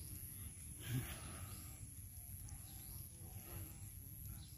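Faint rural outdoor ambience: a steady high-pitched whine runs throughout, with one short low sound about a second in.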